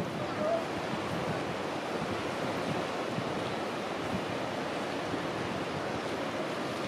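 Steady surf noise from the sea, with wind on the microphone.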